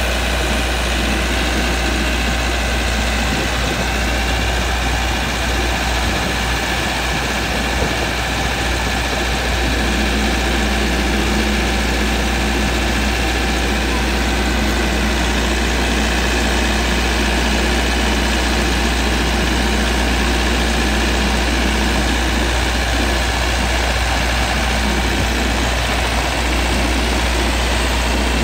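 A soft-serve ice cream truck's onboard generator running steadily with a deep, even hum.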